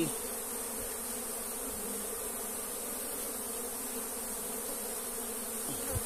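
Steady buzzing of a disturbed honeybee colony, many bees humming together over the exposed combs of an opened log hive.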